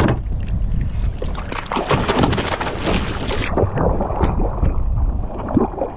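Wind buffeting the microphone over water splashing and slapping against a kayak's hull, with a spell of heavier splashing from about two to three and a half seconds in.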